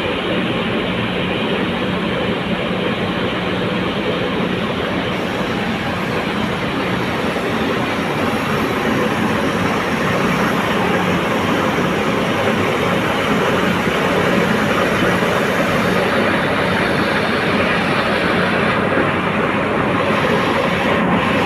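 Borewell drilling rig running during pull-out of the drill string: a loud, steady mechanical din with a constant engine hum underneath, unbroken throughout.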